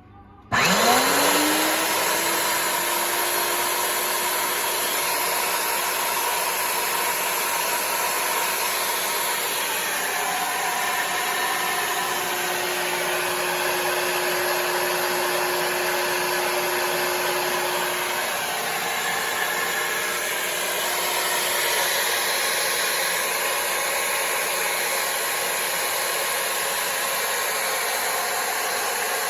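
REX F50A3 pipe threading machine's electric motor switched on, its pitch rising quickly as it spins up, then running steadily with a gear whir during a no-words test run; it is switched off and starts winding down right at the end.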